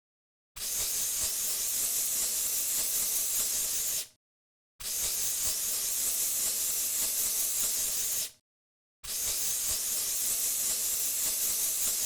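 Narrow-nozzle cockroach insecticide aerosol can spraying in three long bursts of about three and a half seconds each, a steady high hiss that starts and stops sharply with silence between.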